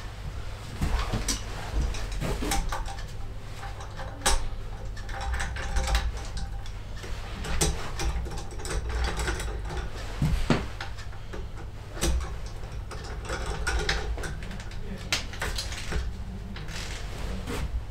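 Socket ratchet clicking in short runs as bolts are run down on the engine, with a few sharper knocks of metal tools.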